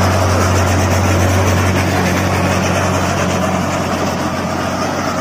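Diesel-powered trenching machine digging, its engine running steadily with a deep, constant drone under a continuous noisy wash.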